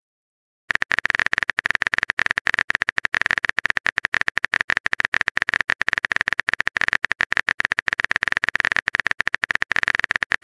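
Rapid, even clicking of a phone-keyboard typing sound effect, many clicks a second, starting just under a second in.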